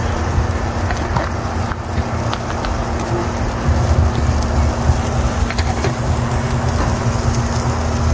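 Wind buffeting the microphone, a steady, uneven low rumble, with a few faint scattered ticks over it.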